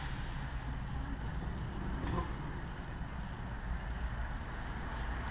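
Thin hiss of compressed air at the oil primer's pressure regulator, which fades out under a second in as the regulator is turned back down, over a low steady hum.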